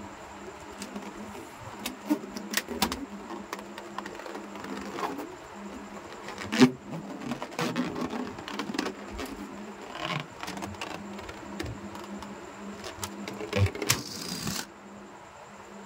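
Hands handling inflated latex balloons: scattered rubbing, squeaks and taps on the rubber over a steady low hum. A sharp tap about six and a half seconds in is the loudest, and there is a short hiss near the end.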